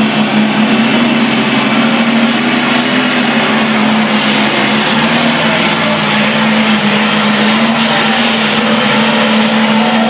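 Diesel pulling tractor running flat out under full load as it drags the weight sled down the track. The engine holds a steady, unbroken pitch.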